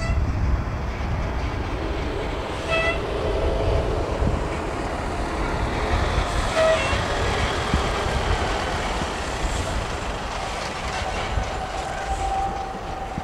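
Pilatus PC-12 single turboprop engine running steadily as the aircraft rolls along the runway, heavy low rumble of wind on the microphone. Two brief higher tones sound about three and seven seconds in.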